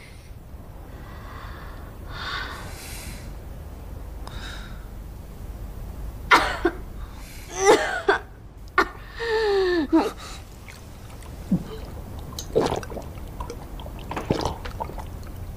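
A young woman's non-speech vocal noises: soft breathy gasps, then a run of short coughs and strained, falling-pitched vocal sounds about six to ten seconds in, with a few weaker ones near the end.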